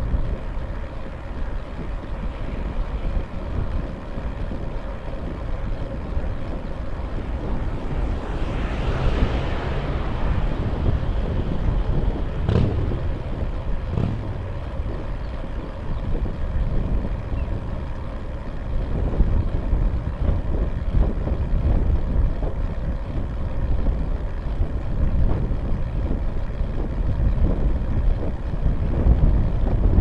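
Wind rushing over the microphone of a bike-mounted camera while the bicycle rides along, with a steady low rumble from the road. About nine seconds in a rushing swell rises and fades, and there are two sharp knocks about a second and a half apart, about twelve seconds in.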